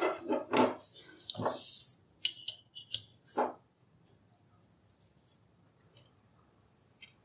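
A plastic ruler handled and laid down on a sheet of paper on a table: a quick run of light clicks and knocks, with a short sliding scrape about a second and a half in. A few faint taps follow as it is lined up.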